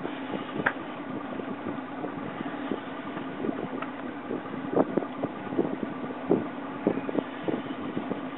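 Boat engine running steadily at trolling speed, with irregular sharp knocks and taps over it that come more often in the second half.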